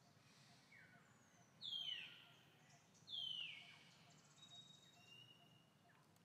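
A bird calling twice, each call a high whistled note that slides down in pitch, about a second and a half apart, with a few fainter shorter whistles around them.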